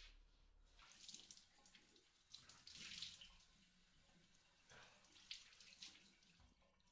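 Faint water splashing at a bathroom sink as a man washes his face with his hands, in three short bouts.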